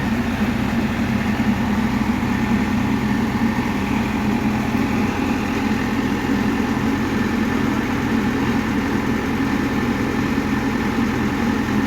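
A heavy machine's engine running steadily at idle, a low even throb.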